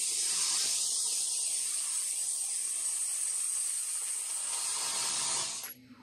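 Dry ice blasting gun blowing a steady high hiss of compressed air and dry ice pellets onto a car floor carpet, cutting off abruptly near the end.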